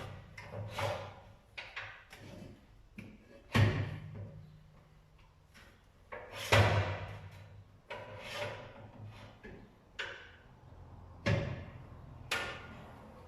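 Tyre and wheel being worked on a tyre changing machine: a series of heavy clunks and knocks, the loudest about 3.5 and 6.5 seconds in, with a low hum lingering after some of them.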